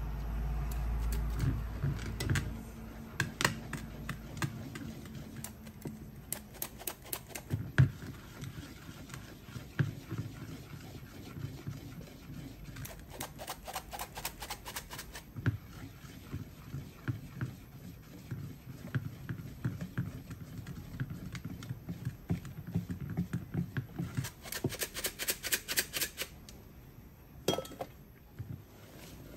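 A stainless steel squeeze-handle flour sifter clicking in quick runs as its handle is worked to sift flour into a bowl, with short pauses between the runs.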